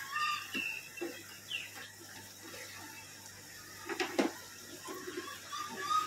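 Repeated short bird calls, about three a second, that break off for a few seconds in the middle and return near the end, with a single sharp knock about four seconds in.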